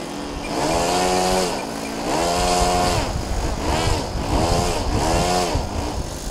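Model plane's ASP 61 four-stroke glow engine being throttled up and back down five times in short bursts, its pitch rising and falling with each burst, as the model sits or rolls on the ground.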